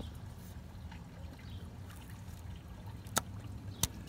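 Hands working a plastic electrical connector on an engine: two sharp clicks, the second about half a second after the first, over a low steady rumble.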